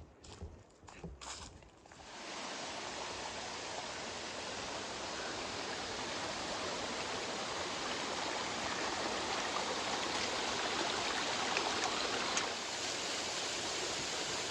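A few footsteps, then from about two seconds in the steady rush of a waterfall, slowly growing louder and easing off slightly near the end.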